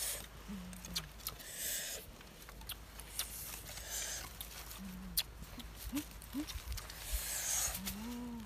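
Small wood fire crackling with sharp irregular clicks while dry sticks are laid over it and dry leaves rustle in short hissing bursts. A few short low calls sound in between.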